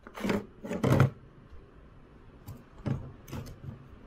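Metal hydraulic cylinder piston handled and set down on a metal workbench: a few clunks and knocks, the loudest about a second in, with lighter knocks and some rubbing as it is wiped with a cotton rag near the end.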